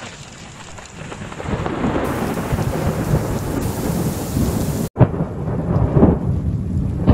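Thunderstorm: thunder rumbling over heavy rain, swelling over the first two seconds. It breaks off abruptly about five seconds in and resumes with louder low rumbles.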